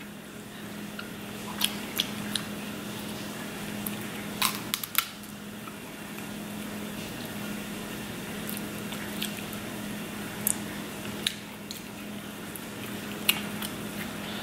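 Eating king crab legs by hand: scattered sharp cracks and clicks of the shell being broken and picked apart, with wet chewing and biting, over a steady low hum.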